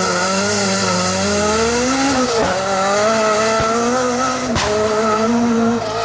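Rally car engine accelerating hard away up the road, its revs climbing and dropping at gear changes about two, three and a half and four and a half seconds in. A sharp crack comes with the last shift.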